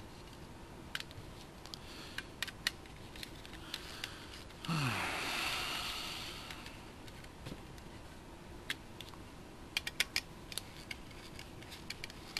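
Small scattered clicks and taps of a screwdriver and metal parts while screws are backed out to separate an RC buggy's chassis plate from its gearbox. About five seconds in, a louder hiss lasts about two seconds.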